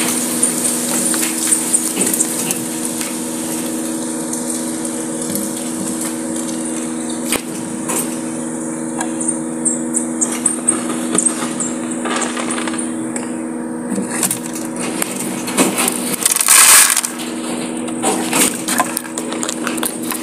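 Rabbits crunching feed pellets close up: irregular small cracks and crunches, with a louder rustling burst about three-quarters of the way through. A steady low hum runs underneath.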